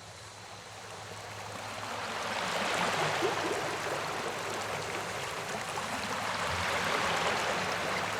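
River water rushing and splashing in a steady hiss that fades up over the first few seconds and then holds.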